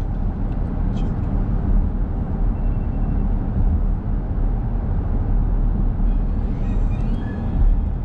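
Steady low rumble of a car driving at road speed: tyre and engine noise.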